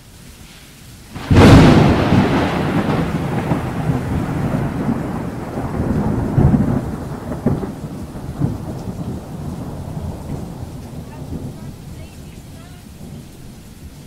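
A close thunderclap: a sudden sharp crack about a second in, then rumbling that rolls on with a few lesser peaks and slowly fades over about ten seconds. It is heard from inside a car, with rain on the windshield.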